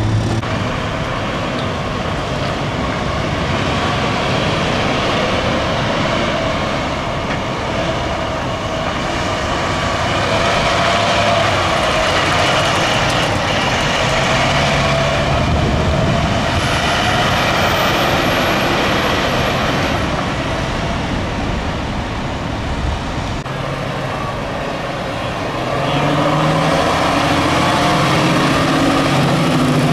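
Heavy fire trucks, a water tender and then a fire engine, driving past with their diesel engines running. A wavering whine rises and falls over the engine noise through the middle, and the deep engine note grows louder near the end as the engine comes close.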